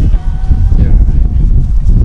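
Wind buffeting the microphone: a heavy, uneven low rumble.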